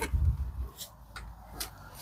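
Low thuds and a few light clicks from the crash-damaged front bumper of a Mercedes E-Class coupe being pushed and handled.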